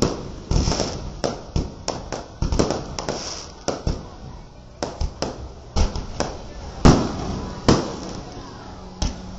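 Aerial fireworks bursting overhead: a rapid, irregular run of sharp bangs, some close together, the loudest about seven seconds in.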